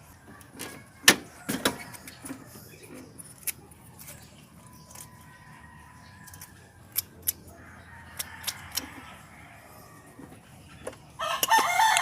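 Scattered metallic clicks and clinks as small engine ignition parts and tools are handled, the sharpest about a second in. Near the end a rooster crows.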